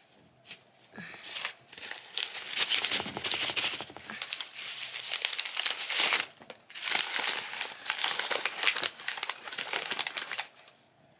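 Brown kraft paper wrapping being crinkled and torn open by hand: a dense run of crackling paper rustle that starts about half a second in and stops shortly before the end.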